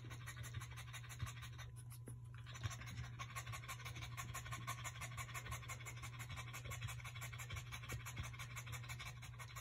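Pregnant French bulldog panting in quick, faint, rhythmic breaths over a steady low hum, which her owners take as a sign of the first stage of labour.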